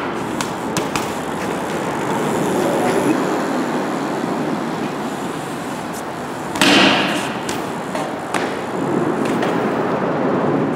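BMX bike riding on concrete skatepark steps and ledges: a steady rolling tyre noise with a few sharp clicks, and one loud impact about two-thirds of the way through.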